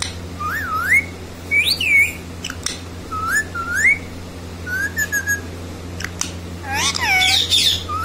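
Rose-ringed parakeet giving a string of short whistles that swoop up and down, with a louder burst of squawky chatter about seven seconds in and a few sharp clicks in between.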